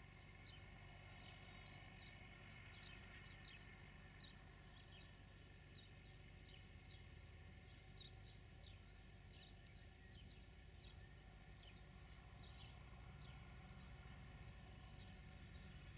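Faint birds chirping, many short high calls scattered throughout, over a low steady rumble.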